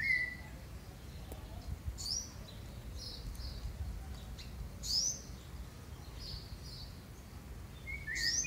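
Rufous-bellied thrush (sabiá-laranjeira) calling: a chirp at the start, then sparse short rising notes every few seconds, and a quick run of repeated notes beginning near the end, over steady low background noise.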